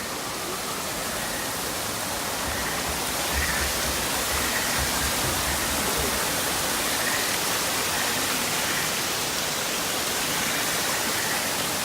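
Steady rush of running water, an even hiss like a waterfall, swelling slightly a couple of seconds in and then holding level.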